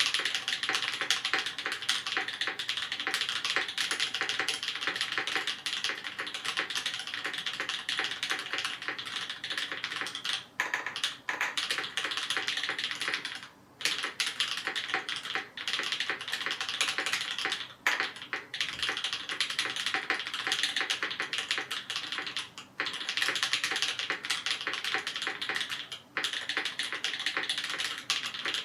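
Fast typing on a Perry Mc65 mechanical keyboard with BCP switches (H1 bottom housings, Kailh black stems, vintage Cherry tops), a black anodized aluminium plate and GMK keycaps. It is a dense run of keystroke clacks broken by a few brief pauses.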